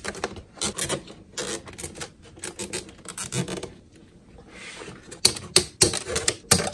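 Irregular plastic clicks and rubbing as zip ties are fastened around light-kit wires on a hard plastic RC truck body, with a few sharper clicks near the end.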